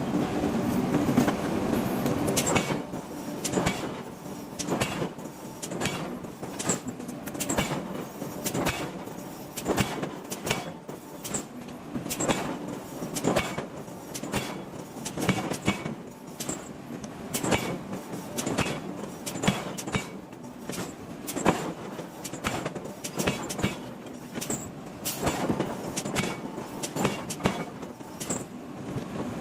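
Hot iron bar being forged under repeated hammer blows: a long series of sharp metallic strikes, roughly two a second and somewhat uneven, over steady machinery noise.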